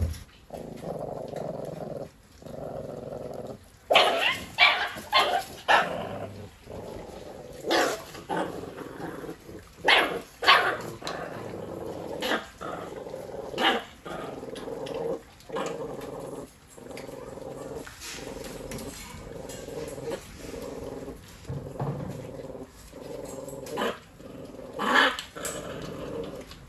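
Puppies growling over a piece of raw meat as they tug at it, the growls coming in runs of a second or two with short gaps, broken every few seconds by sharp barks and yelps, with a cluster of them about four to six seconds in and again near the end.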